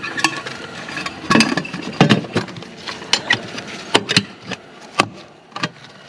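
Air filter housing cover on a Bobcat T630 skid steer being fitted back on and its latch clips snapped shut by hand: a string of sharp clicks and knocks about a second apart.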